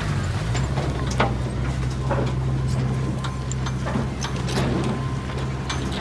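Diesel engine of a small Komatsu bulldozer running steadily, with scattered short clicks and knocks over it.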